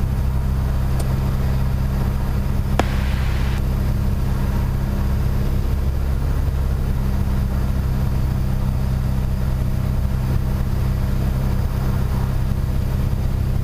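Piper PA-28 Warrior III's four-cylinder Lycoming engine and propeller droning steadily, heard inside the cabin on final approach. A single sharp click sounds about three seconds in.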